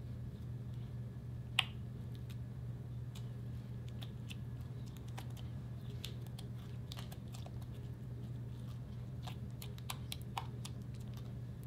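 Slime being folded and pressed by hand, making scattered small sticky clicks and pops, with one sharper pop about a second and a half in and a few more near the end, over a steady low hum.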